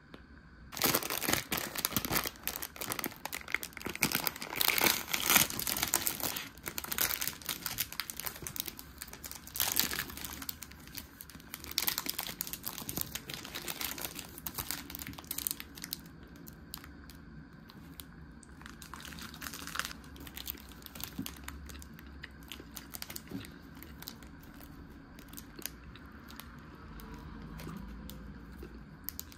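Plastic film wrapper of a convenience-store onigiri being torn open and peeled off, with dense crinkling and tearing for about fifteen seconds, then lighter, scattered rustles.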